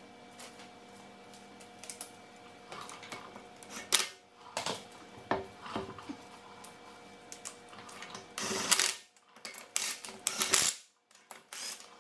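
Metal clicks and clinks of lug nuts being put on a car wheel hub by hand, with a sharp knock about four seconds in. Near the end come several short bursts of a handheld power tool spinning the lug nuts down.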